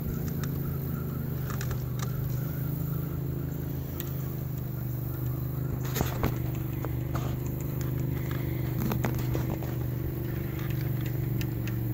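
Boat motor running steadily at low speed, a low even drone, with a few light clicks and knocks scattered through it, the sharpest about halfway.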